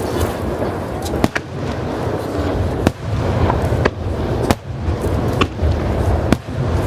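Aerial fireworks shells bursting: sharp reports several times at uneven intervals over a continuous low rumble of further bursts.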